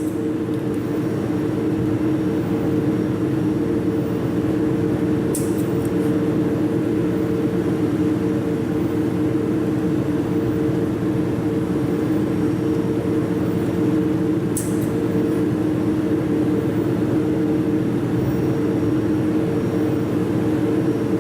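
Jewelry laser welding machine running with a steady hum. A few brief, sharp, high clicks sound several seconds apart.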